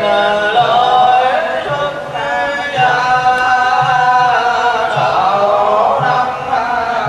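A group of voices chanting a melody in unison, with drawn-out gliding notes, over a low pulse that sounds about once a second.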